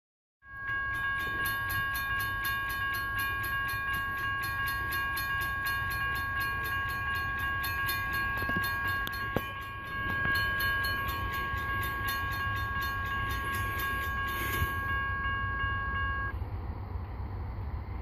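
Railroad grade-crossing warning bell ringing with rapid, even strikes, stopping suddenly about sixteen seconds in. Strong wind buffets the microphone with a low rumble throughout.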